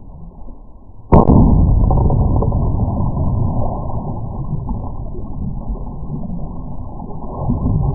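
A single sudden loud bang about a second in, then loud, muffled splashing as the hooked halibut thrashes at the surface.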